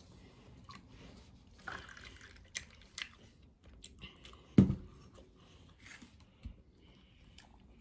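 Blended watermelon juice pouring and dripping from a blender jar into a plastic ice-lolly mould, with light plastic clicks. About halfway through comes a single heavier thump, the loudest sound, and a smaller knock follows.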